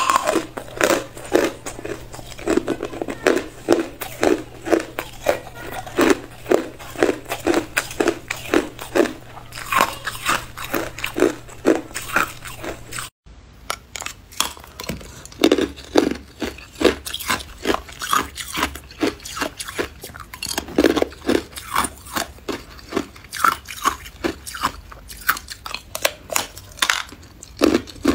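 Chunks of hard ice being bitten and crunched between the teeth close to the microphone, a steady run of sharp crunches coming a couple of times a second. About halfway through the sound drops out for a moment, then the crunching carries on.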